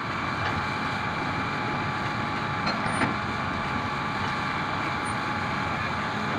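Hitachi 310 excavator's diesel engine and hydraulics running steadily under load while it loads rock into a dump truck, with a steady whine over the engine and a single knock about three seconds in.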